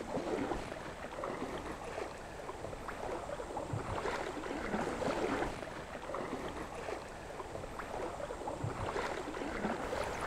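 Shallow river water running over stones: a steady rushing babble that swells louder twice.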